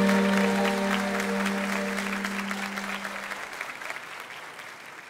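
Audience applauding over a live band's final held chord. The chord dies away about three and a half seconds in, and the applause fades steadily out.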